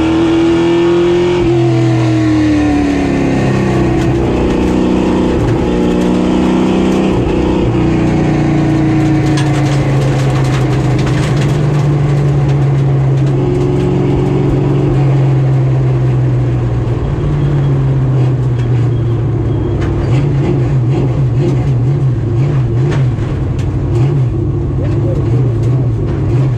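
Street stock race car's GM 602 crate V8 running practice laps, its pitch climbing and falling with the throttle, then wavering unevenly near the end.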